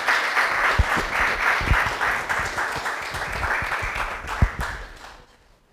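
An audience applauding: dense clapping that fades out near the end, with a few low thumps among it.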